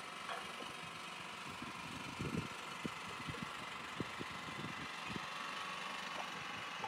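Sailboat's engine running steadily at low revs under way, under a steady hiss of wind and water, with irregular soft thumps scattered through it.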